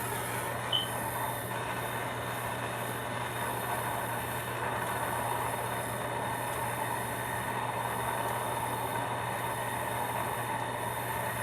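Plumber's gas torch flame burning steadily with a constant hiss, heating a copper pipe joint as solder is drawn in. A brief high squeak comes about a second in.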